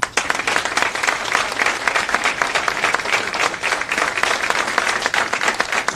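An audience applauding: dense clapping that breaks out all at once and keeps going steadily.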